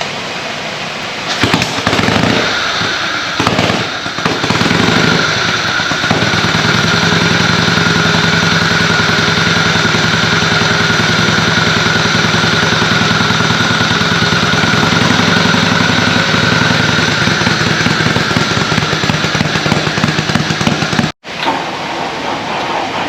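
Old engine starting: a few sharp firing cracks, then it settles into a steady, rhythmic running note that cuts off abruptly near the end.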